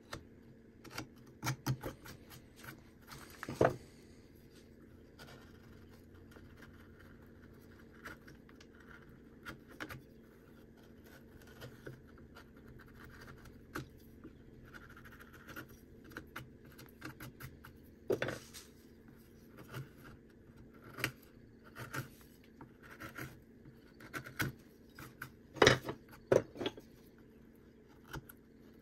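Carving knife and small gouges cutting into soft cottonwood bark: irregular short scraping and crunching strokes. There are a few sharper, louder cuts about four seconds in, near the middle and again near the end.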